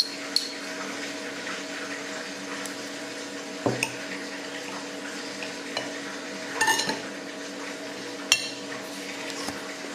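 Knife and fork clinking and scraping against a plate while cutting a boiled dumpling: several separate clinks, a small cluster of them just past the middle, over a steady background hum.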